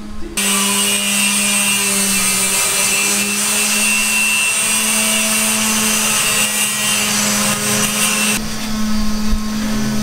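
A power tool running steadily with a harsh, hissing grinding noise. It starts abruptly just after the beginning and changes about eight seconds in, over a steady low hum.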